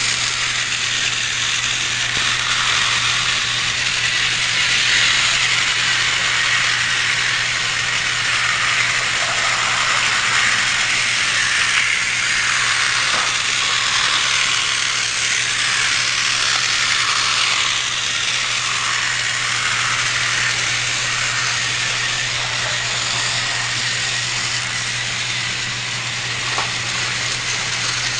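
Battery-powered Trackmaster toy train running on plastic track: the steady whir and rattle of its small geared motor and wheels.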